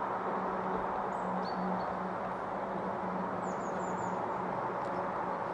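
Small birds chirping faintly: one short call about a second and a half in, then a quick run of four high chirps a little past the middle. Behind them is a steady rush of background noise with a low hum.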